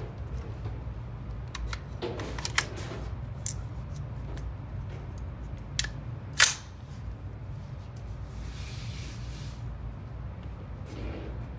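Metallic clicks and clacks of a Ruger AR-556 rifle being handled and readied to fire, with one louder clack about six seconds in. A steady low hum runs underneath.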